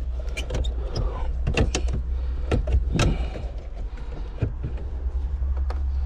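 Irregular plastic clicks and knocks of a car radio and dash trim being pushed and fitted back into the dashboard, over a steady low rumble.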